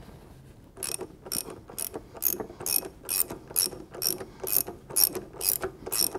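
Hand ratchet clicking in steady strokes, about two a second, starting a little under a second in. It is turning the forcing screw of a Pitman arm puller to press the arm off the steering gearbox's sector shaft.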